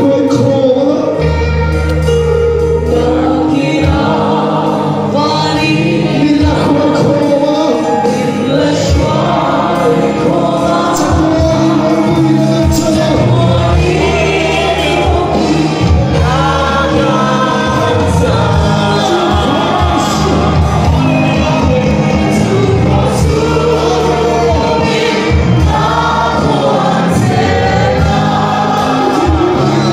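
A large congregation singing a worship song together over band accompaniment, with a steady bass line and a regular drum beat under the voices.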